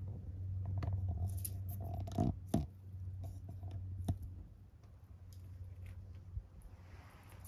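A few short clicks and rustles over a steady low rumble. Two clicks come close together about two seconds in, another about four seconds in, and after that it is quieter.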